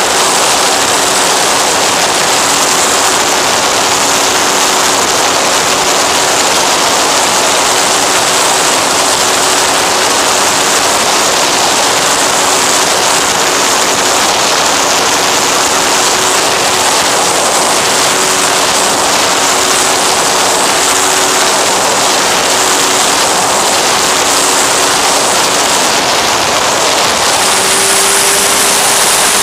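Onboard sound of an FX-79 flying wing in flight: a loud, steady rush of air over the airframe and microphone, with a steady drone from its motor and propeller underneath. The drone rises slightly in pitch near the end.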